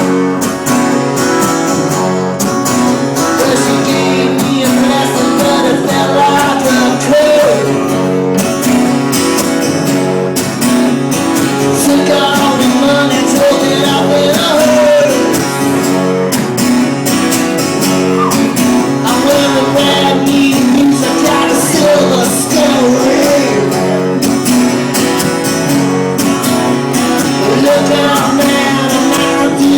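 Live blues song: a strummed acoustic guitar with a voice singing over it.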